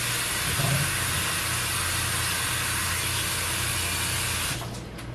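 Kitchen tap running steadily as potatoes are rinsed under it, then shut off about four and a half seconds in.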